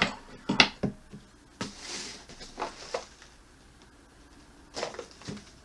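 A cardboard box being handled and opened: several light knocks and clicks, with a short scraping rustle about two seconds in.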